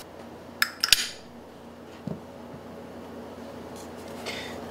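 Two sharp metallic clinks just before a second in, then a smaller knock and quieter handling: the screws from the back of a DLE 55 model-aircraft engine's crankcase and the hex screwdriver being handled against the metal engine as the crankcase screws are removed.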